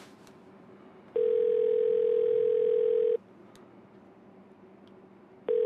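Telephone ringing tone (ringback) heard while a mobile phone call waits to be answered: a steady single-pitch tone rings for about two seconds starting about a second in, pauses, and rings again near the end.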